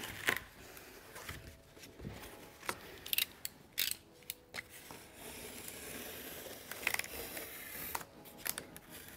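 Cardboard being cut to a straight edge along a drywall square: scattered clicks and knocks, with a longer steady scraping stretch from about five to eight seconds in.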